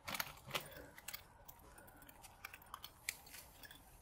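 Small metal parts from dismantled circuit breakers clicking and clinking as they are handled and sorted, with two sharper clicks in the first second and then a few faint ticks.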